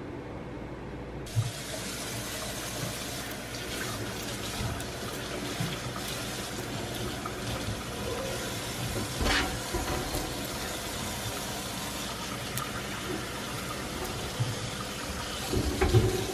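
Honey and wax being scraped from the inside walls of a stainless steel honey extractor drum with a hand tool, a steady wet scraping with a few knocks against the metal.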